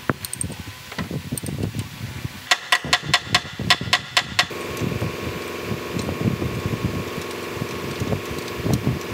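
Hand wrenches working the bolts on a loader gearbox casing: irregular metal knocks, and a quick run of sharp, ringing metallic clicks at about five a second for some two seconds. About halfway through, a steady mechanical hum sets in underneath.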